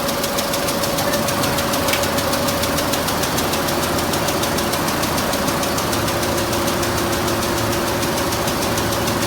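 Multi-needle quilting machine running, its needle bar stitching in a fast, even clatter over a steady motor hum.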